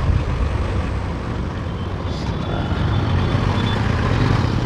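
Bajaj Pulsar NS200 motorcycle riding in traffic: a steady low engine hum mixed with wind and road noise.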